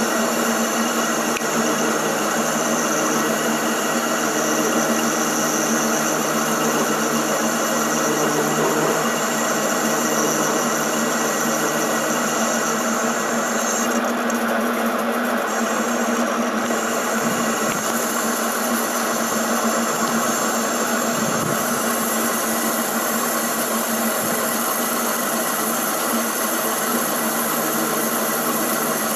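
Metal lathe running steadily while its cutting tool turns a V-groove into a steel pulley under coolant, a continuous machine hum with the noise of the cut.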